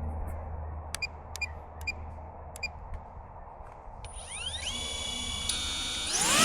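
DJI Avata 2 FPV drone's motors spinning up: after a few short clicks, about four seconds in a whine rises in pitch and levels off into a steady high tone, stepping up again and growing louder near the end.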